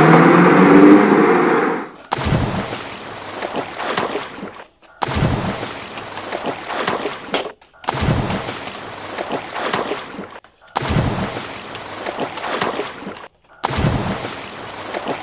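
A loud steady noise cuts off about two seconds in. Then come short choppy bursts, each opening with a knock and fading into sloshing water, as a plastic toy dump truck is handled and dunked in a bucket of muddy water. The bursts are about two and a half seconds each, broken by brief silences.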